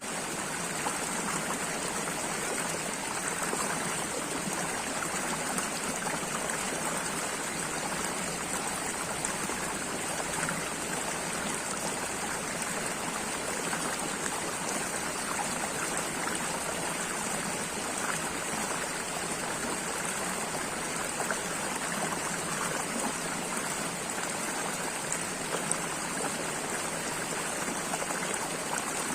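Steady running water, a continuous rushing flow with faint small splashes scattered through it.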